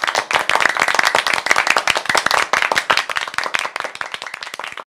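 Applause: many hands clapping in a dense, steady patter that starts suddenly and cuts off abruptly just before the end.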